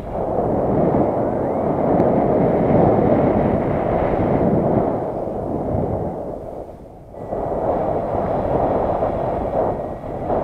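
Wind buffeting the microphone: a loud, steady rushing that eases off briefly about six to seven seconds in.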